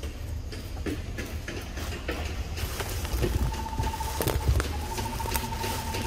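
Forest ambience: scattered light knocks and rustles over a low rumble, and from about halfway a bird's even trilling call, broken once briefly.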